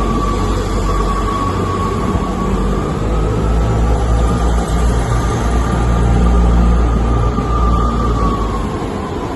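Train passing through the station, its diesel engine note rumbling low and building to a peak before easing off. A steady high whine runs above it and fades near the end.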